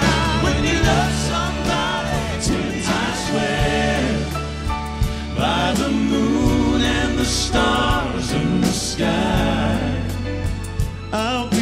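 A male vocal quartet singing together live, backed by piano, electric bass and drums with cymbal hits.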